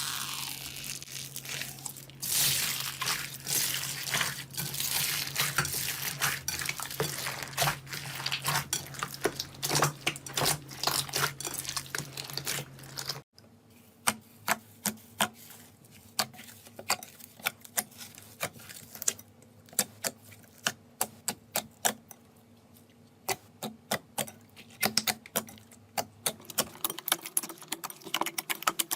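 Slime being squeezed and pressed by hand: a run of sticky clicks and small pops. About 13 seconds in the sound changes abruptly to sparser, quieter clicks.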